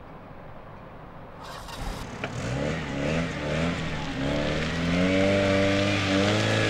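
Car engine of a Mitsubishi Galant sedan revving hard. The revs climb in a few quick rising surges from about two and a half seconds in, then hold high and dip slightly near the end. Before that there is only a low, steady background.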